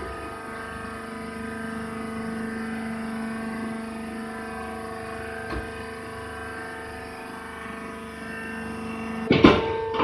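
Hydraulic rice husk baler's motor and pump running with a steady hum. A single click about halfway through, and a sudden loud clatter near the end.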